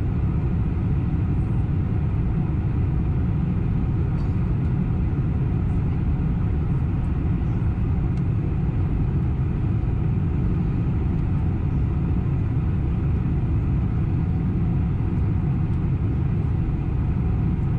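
Steady cabin noise of a Boeing 747-400 on its approach descent, heard from a window seat over the wing: an even, deep rumble of airflow past the fuselage and its four GE CF6-80C2 turbofans, unchanging throughout.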